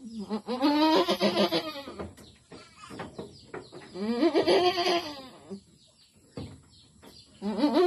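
Goat doe in difficult labour bleating: long, loud cries with a pitch that rises and falls, two full calls and a third starting near the end. The doe is straining to deliver a large kid.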